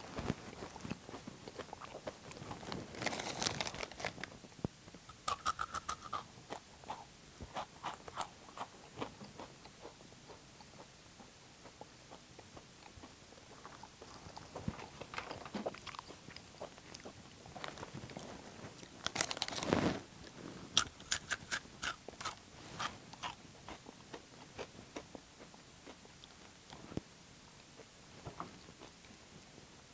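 A person crunching Takis rolled tortilla chips, sharp crunches coming in quick runs, with the chip bag crinkling as a hand reaches in for more.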